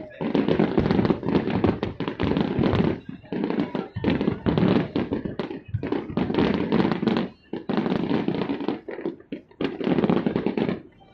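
Aerial firework shells bursting in rapid volleys of bangs and crackle, each volley lasting a second or two with brief breaks between them.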